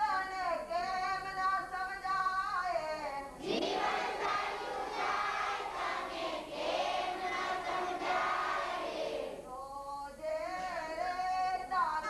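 A group of children singing a devotional song together in unison, swelling to a louder, fuller passage for several seconds in the middle.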